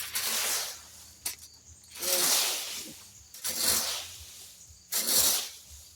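A rake scraping and swishing through dry leaves and sticks, four strokes about a second and a half apart.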